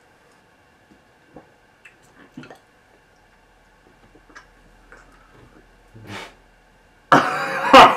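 Faint mouth clicks and smacks of someone chewing tough camel tongue with a hand over his mouth, then a sudden loud burst of laughter about seven seconds in.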